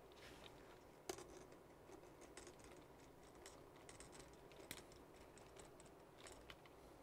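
Faint, scattered clicks and ticks of a hex driver turning a small screw into the carbon fiber front shock tower of a Losi Mini 8ight RC truck, the tool and plastic chassis parts knocking lightly. The sharpest clicks come about a second in and near the middle.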